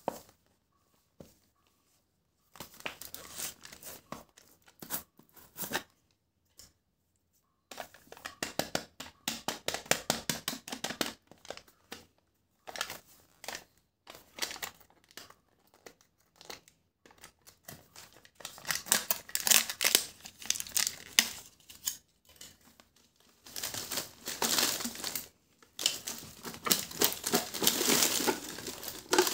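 Plastic packaging crinkling and tearing in several bouts with short pauses: the shrink-wrap seal on a plastic candy jar being peeled off, and the plastic-wrapped peanut bars rustling as they are handled and tipped out.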